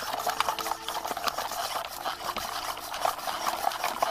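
Fly line being wound off a fly reel onto a hand-cranked plastic Omnispool Switchbox spool, with a fast, uneven run of small clicks from the turning reel and spool.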